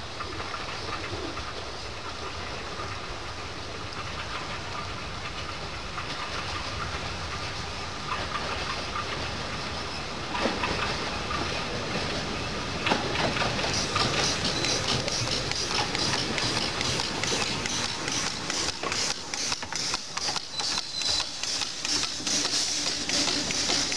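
Miniature 15-inch-gauge steam locomotive "Wroxham Broad" approaching and running past with its train of coaches. It is faint at first and grows louder about halfway through. As it draws alongside, its regular exhaust beats come with a strong hiss of steam.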